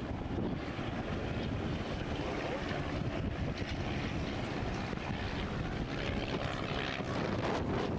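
Single-engine propeller aircraft flying past, its piston engine running at a steady drone, with wind buffeting the microphone.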